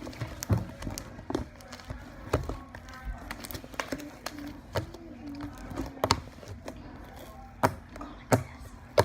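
Slime being squished and poked by hand for ASMR, giving irregular wet pops and clicks, a few of them louder near the end.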